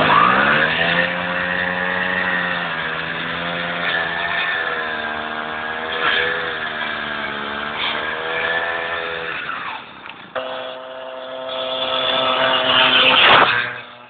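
Small two-stroke moped engine revving up as the moped pulls away, then running at high revs with a slightly wavering pitch while it is pushed towards about 65 km/h. The revs drop about nine and a half seconds in, pick up again at a steadier pitch, and the sound cuts off abruptly just before the end.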